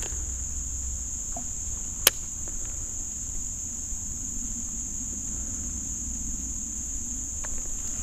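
Steady high-pitched chorus of insects, with a single sharp click about two seconds in.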